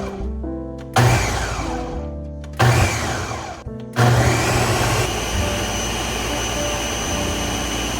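Background music: sustained tones cut by loud hits with falling sweeps about every second and a half, giving way about four seconds in to a steady noisy wash under faint held notes.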